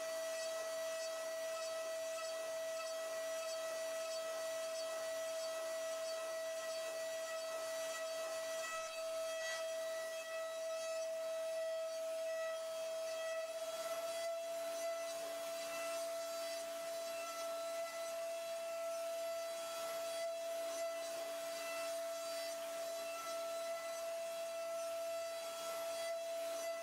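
CNC milling machine's end mill cutting a metal part: a steady high-pitched whine with a scraping hiss under it.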